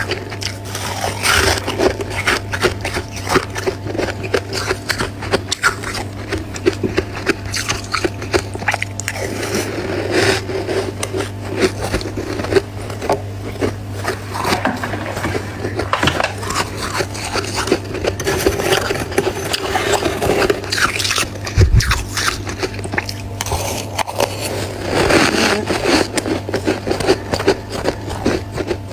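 Close-up crunching and scraping of powdery freezer frost being bitten and chewed, a dense run of crackly, gritty crunches with a steady low hum underneath.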